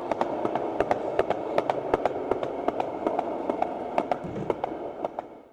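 Steady crackling hiss with irregular sharp clicks, a few each second, fading out near the end.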